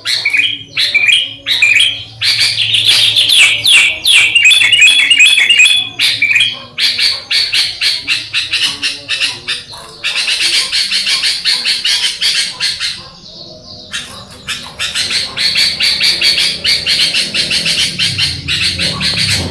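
Sooty-headed bulbuls (kutilang) chirping and singing in a fast, continuous stream of bright notes, with a short lull about two-thirds of the way through before the chatter picks up again.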